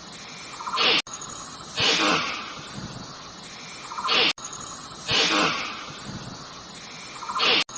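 Snake hissing in repeated sharp hisses, about five of them, as a short recording is looped roughly every three seconds with abrupt cuts between repeats.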